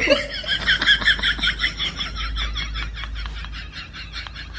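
A rapid, high-pitched cackling laugh, a long run of quick repeated notes that slowly fades.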